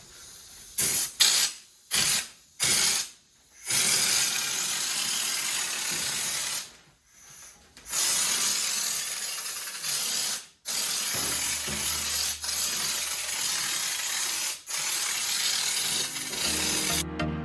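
Aerosol can of underbody sealer spraying: a few short bursts, then long continuous hissing sprays broken by brief pauses.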